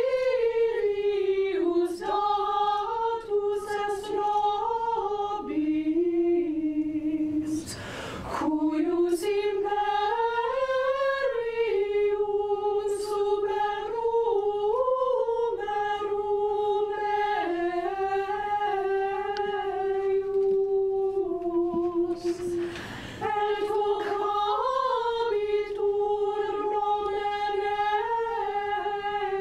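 Small women's choir singing a cappella, holding long notes, with two short pauses for breath about 8 and 23 seconds in.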